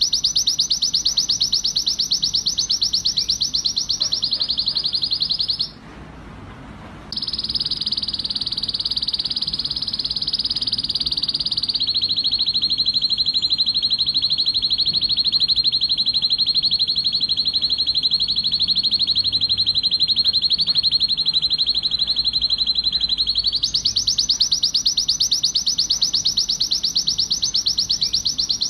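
Male domestic canary singing an excited breeding-season song of fast rolling trills, rapid repeated notes strung into long rolls. The song breaks off for about a second and a half near six seconds in, runs on in one long even roll, and turns brighter and faster near the end.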